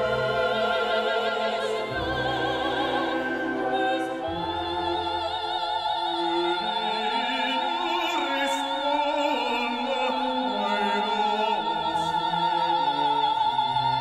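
Operatic singing with orchestra: a high voice with wide vibrato, holding one long high note from about four seconds in.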